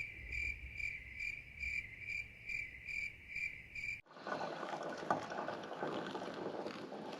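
A cricket chirping steadily, a high pulsing trill repeating about two and a half times a second. About four seconds in it cuts off abruptly, giving way to a fainter, hissy outdoor background with scattered small clicks.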